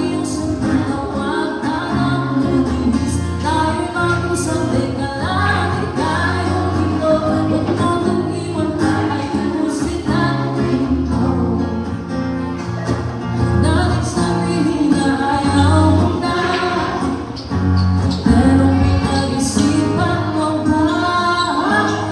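A woman singing a slow song at a microphone, accompanied by an acoustic guitar.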